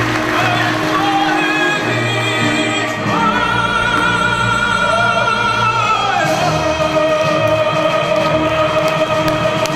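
Live music with operatic-style singing: sustained notes with vibrato, one long high note held for a few seconds in the middle, then settling onto a lower held note.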